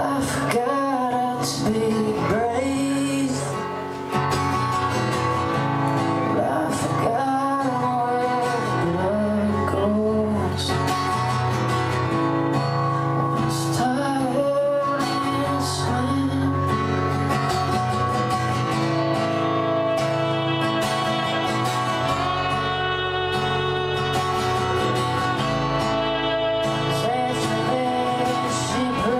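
Live folk band playing: a singer's voice over a strummed acoustic guitar, with fiddle and bass guitar. The singing bends through the first half; later the fiddle and guitars carry steadier, wavering held notes.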